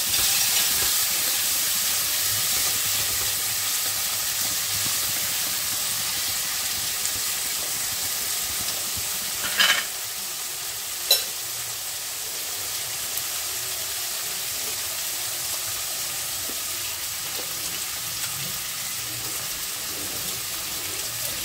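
Chopped garlic and tomato frying in hot oil in a karahi: a steady sizzle that eases slightly, with two brief clatters near the middle.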